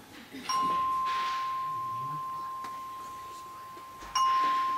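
A chime bar (a single tuned metal tone bar on a resonator box) struck twice with a mallet, the second strike about three and a half seconds after the first. Each strike rings out as one clear high note that fades slowly.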